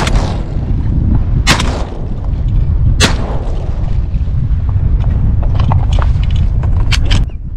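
Three shotgun shots about a second and a half apart, over steady wind buffeting the microphone, followed near the end by a quick run of fainter sharp clicks and knocks.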